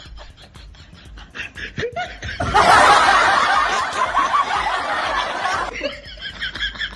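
A man snickering and chuckling in short pulses. About two and a half seconds in, a much louder, dense burst of laughter-like sound starts abruptly and lasts about three seconds before cutting off.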